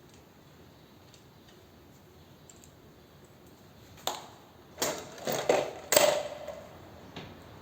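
Hand tools knocking and clanking against metal: a quiet start, then a short run of sharp clanks about four seconds in, some with a brief ring, and a last light tick near the end.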